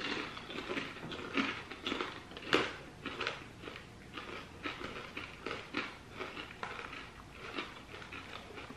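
A person chewing crunchy chocolate- and peanut-butter-coated popcorn: a run of irregular crunches, a few louder than the rest.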